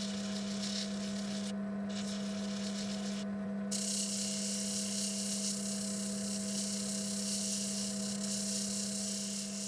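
Drill press motor running with a steady hum, spinning a homemade disc of stacked sanding discs, while a pencil point rubs its edge with a scratchy hiss. The hiss breaks off twice in the first few seconds, then runs steadily.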